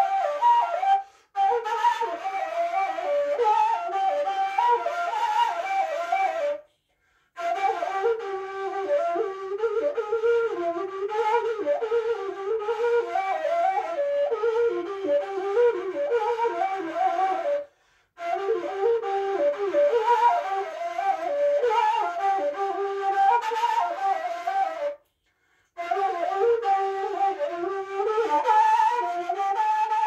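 Solo long end-blown wooden flute playing an ornamented folk melody in quick, wavering phrases. It breaks off for short breaths about a second in, about seven seconds in, at about eighteen seconds and again at about twenty-five seconds.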